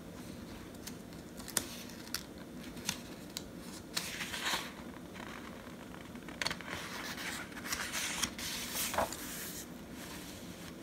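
Paper handling: a few light clicks and taps, then rustling and scraping as a large picture book's page is turned and smoothed flat, the louder rustles in the second half.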